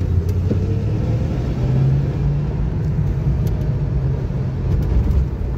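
1982 Ford Mustang GT's 5.0-litre V8 pulling under acceleration, heard from inside the cabin. The engine note rises and gets louder about a second and a half in, holds, then eases off near the end.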